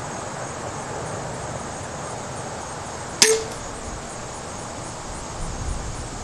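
An 80 lb pistol crossbow fires once, about three seconds in: a single sharp snap of the released string and limbs with a brief ringing twang.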